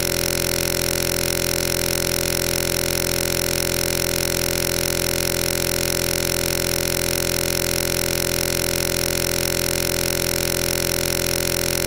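A loud, steady electronic buzz that never changes, made up of many fixed tones.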